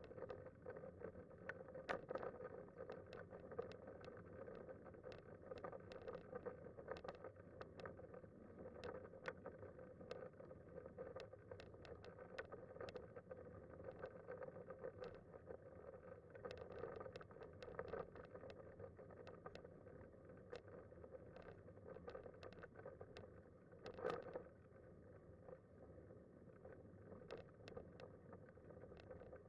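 Faint rolling sound of a Kuschall K-Series manual wheelchair with a FreeWheel front-wheel attachment moving on asphalt. A steady low hum runs under frequent small clicks and rattles, with one louder knock toward the end.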